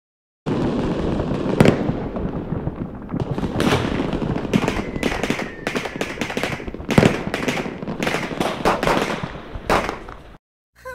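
Fireworks going off: a continuous hiss dense with sharp cracks and bangs. It starts suddenly about half a second in and cuts off suddenly near the end.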